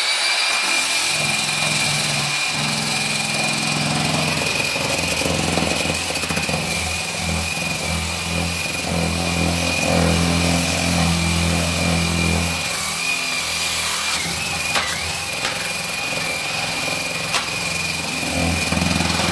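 Long-neck under-radiator floor sander, an electric motor driving a sanding disc, starting up with a rising whine. It then runs steadily while sanding the hardwood parquet beneath the radiator, its low hum swelling and fading as the disc is pushed and pulled across the floor.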